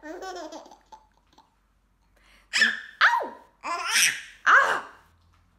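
Laughter from a baby and a woman: a brief vocal sound at the start, then four quick high-pitched laughing bursts with falling pitch in the second half.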